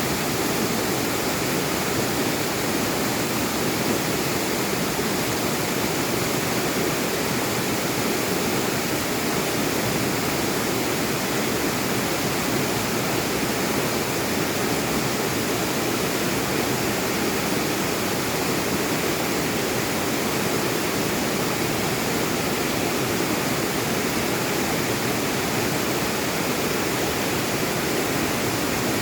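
Mountain valley stream rushing steadily over rocks: a constant, even rush of water.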